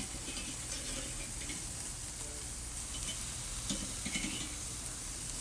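Steaks sizzling steadily on hot cast-iron grill grates over charcoal, searing at around 400–500 °F, with a few faint taps.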